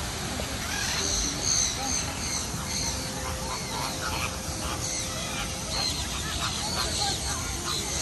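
Many birds calling at once, with many short, high chirps overlapping.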